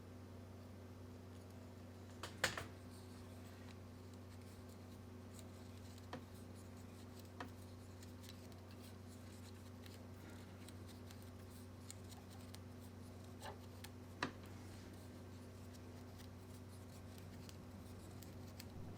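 A steady low hum with a few light clicks and taps of small objects being handled; the sharpest click comes about two and a half seconds in.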